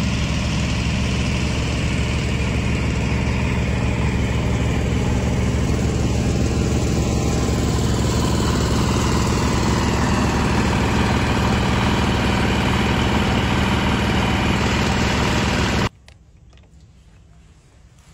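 Mini excavator's diesel engine running steadily, then cutting off abruptly about sixteen seconds in.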